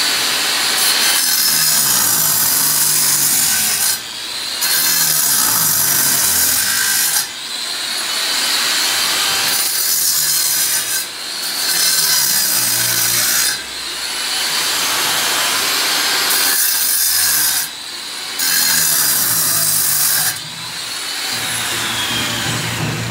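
Angle grinder with a 7-inch Makita disc cutting chases into a brick wall to mark out electrical boxes: a loud, high-pitched grinding noise in about six passes, each broken off briefly as the disc comes out of the brick and the motor runs free.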